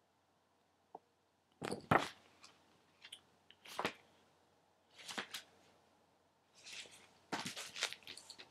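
Comic books being handled and set down on a desk: a series of sharp taps and knocks, the loudest pair about two seconds in, then a few more, with a cluster of taps and rustling near the end.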